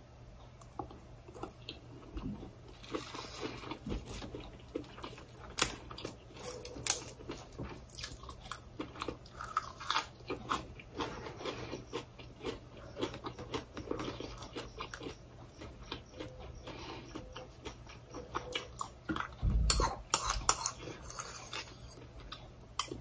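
Close-up chewing of a mouthful of sticky rice with mashed eggplant dip: irregular wet mouth clicks and smacks. About three-quarters through comes a louder dull thump with rustling, and near the end a spoon clicks against a small bowl.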